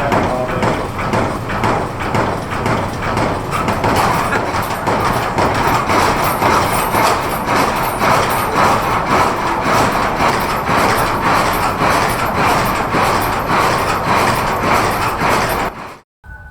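Horse hooves clip-clopping in a steady rhythm over a rolling rumble, cutting off abruptly near the end.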